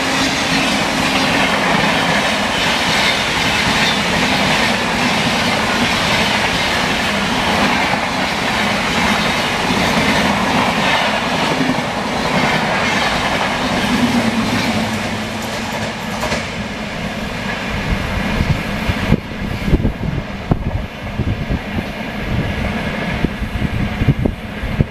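Rajdhani Express passenger train running through a station at speed, its coaches passing close by with a steady loud rush and wheels clattering over the rail joints. In the last several seconds the rush thins out and uneven low thumps come through as the end of the train goes by.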